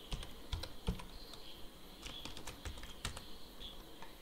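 Typing on a computer keyboard: an uneven run of sharp keystroke clicks.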